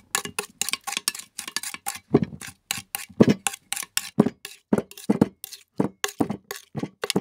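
Metal lid clinking and rattling on an enamel cooking pot, an irregular run of sharp clanks and taps, about three or four a second, performed as foley for cooking.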